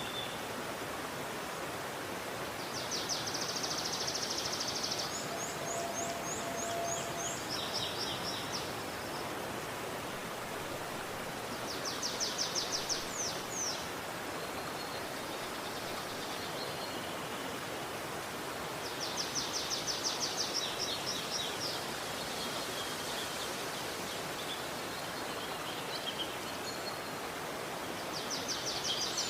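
Steady rushing of a river, with a small bird singing a fast, high, rattling trill several times over it.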